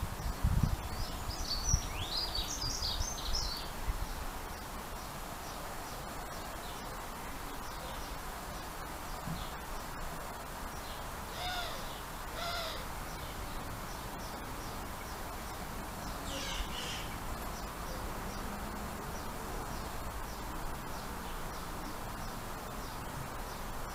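Wild birds calling: a run of quick high chirps near the start, two fuller, lower calls about halfway, and a short high call later. Under them is a steady background hiss, with a few low thumps in the first couple of seconds.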